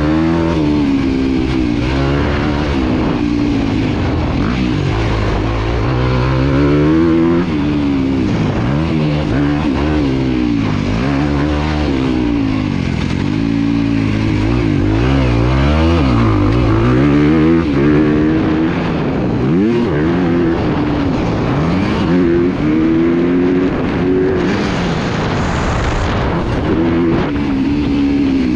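Dirt bike engine ridden hard, heard close up from on the bike: it revs up and drops back over and over as the throttle is opened and shut, its pitch rising and falling every second or two.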